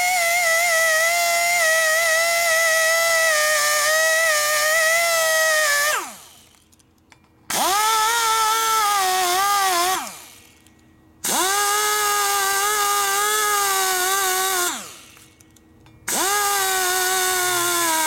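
High-speed die grinder whining as it cuts into an aluminium Harley Twin Cam cylinder head during port work, its pitch wobbling as it cuts. It runs for about six seconds, then is released and spins down with a falling whine, and is started again three more times in short runs.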